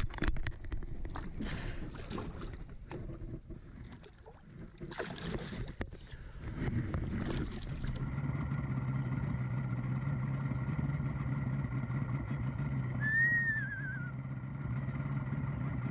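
Irregular splashing and handling noise as a large lake trout is let go over the side of a boat. From about eight seconds in a steady low motor hum runs, and near the end a single short, high warbling bird call rises and then falls.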